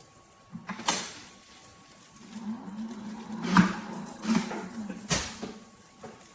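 Small electric motor of an automatic dog ball launcher humming low and wavering, with sharp clicks about a second in, in the middle and near the end.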